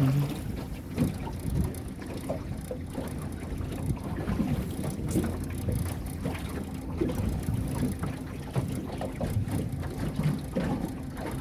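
Motorboat under way: a steady engine hum under wind buffeting the microphone, with irregular low thumps of water against the hull.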